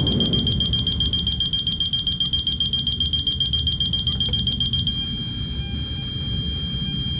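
Magneto timing light's high-pitched electronic tone, pulsing rapidly, then holding steady for the last couple of seconds.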